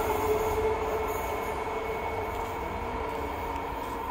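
Electric multiple unit local train running, a steady rumble with steady whining tones from wheels and motors, easing slightly in loudness early on.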